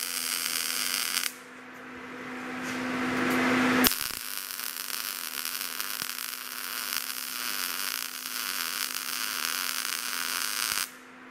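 Gas-shielded MIG welder arc in short-circuit transfer, a steady crackling sizzle, with the wire speed set to match the voltage. One bead ends about a second in, and a second bead starts about four seconds in and cuts off sharply near the end. A steady hum fills the gap between the beads.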